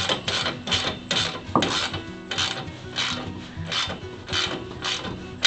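Socket ratchet wrench worked back and forth to tighten bolts, a short burst of rasping pawl clicks on each return stroke, about two a second.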